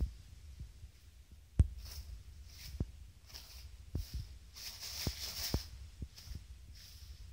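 Toilet paper rustling as sheets are pulled and handled off a roll on a wall holder, in a run of short crinkly swishes that thicken about five seconds in. Soft low thumps come through it, the loudest about a second and a half in.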